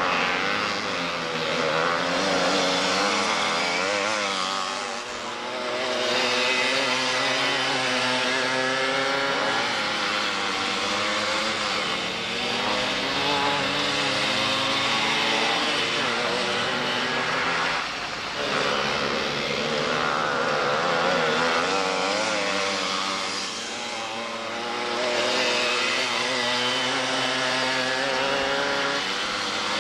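Go-kart engines, small two-strokes, running hard as the karts lap a tight circuit, the pitch rising and falling with the throttle through the corners. The level dips briefly a few times.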